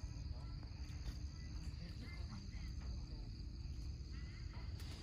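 Steady high insect chirring over a low steady rumble, with faint distant voices now and then.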